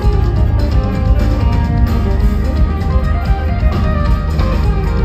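A rock band playing live, with guitar to the fore over a heavy bass end, continuous and loud.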